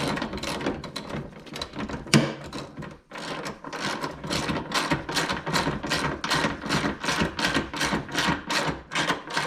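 Hand ratchet wrench clicking rhythmically, about three or four clicks a second, as a skid-frame mounting bolt is run in on a snowmobile, with a single metal knock a little past two seconds in.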